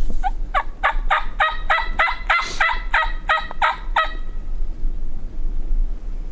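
Wild turkey yelping: a run of about a dozen evenly spaced call notes, three or four a second, building up and then trailing off after about four seconds.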